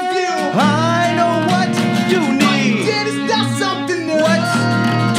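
Live acoustic band music: a strummed steel-string acoustic guitar with an acoustic bass guitar underneath and a bowed violin playing a melody that slides between notes.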